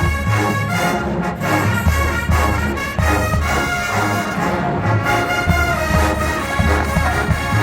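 College marching band playing a Motown tune, the brass section carrying held chords over a steady low drum beat.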